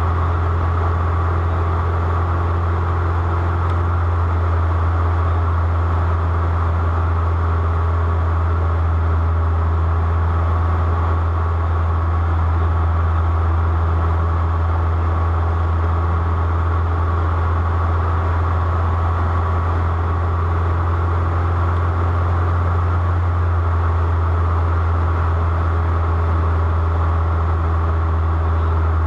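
Aircraft engine drone heard from inside the cabin: a steady, unchanging low hum with a faint steady whine above it.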